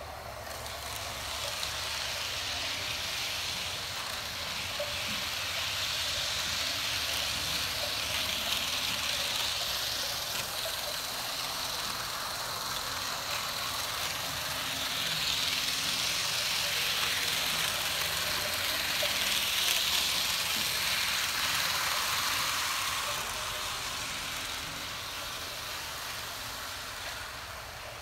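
HO scale PlayArt Shinkansen Type Zero model bullet train running on the layout track, a steady hissing whir of its motor and wheels on the rails. It swells louder and fades several times as the train comes closer and draws away, loudest about two-thirds through.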